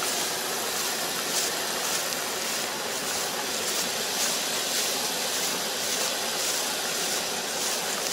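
A rice combine harvester at work, giving a steady, even mechanical rushing noise with no distinct engine note.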